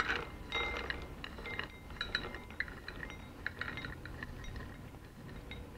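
Roasted almonds pushed with a silicone spatula out of a large glass bowl, tumbling and clicking into a small glass bowl with a faint glassy ring. The clicks are busiest over the first few seconds and thin out toward the end.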